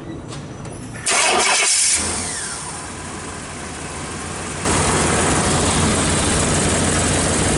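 Truck engine starting: a sudden loud burst about a second in that dies down, then loud steady running from a little past halfway.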